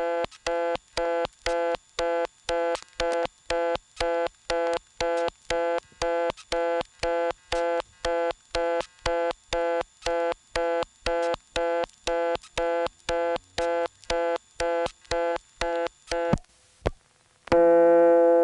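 Reorder (fast busy) tone on an analog telephone line: a two-tone signal pulsing about twice a second, with subtle random changes in it. About sixteen seconds in it cuts off, a click follows, and a louder steady tone begins near the end.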